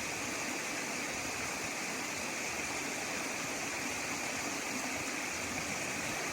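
Mountain creek water rushing steadily over rocks, a continuous even roar.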